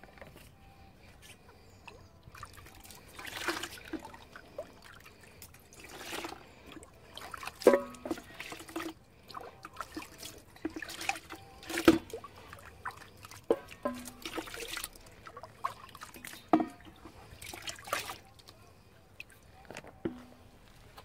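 Water poured from a ladle over the inside of a freshly tinned copper pan and splashing into a bucket in a series of separate pours, as the pan is rinsed. Several sharp metal clinks of the ladle and pan ring out between the pours, the loudest about halfway through.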